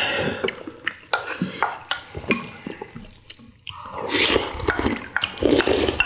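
Samgyetang broth being slurped straight from ceramic bowls, with several short clicks and clinks of utensils against the bowls.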